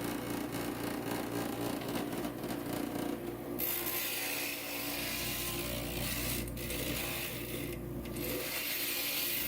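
Glass grinder motor running with a steady hum. About a third of the way in, a stained glass edge is pressed against the diamond grinding bit, giving a high gritty hiss with two brief breaks as the piece is lifted and repositioned.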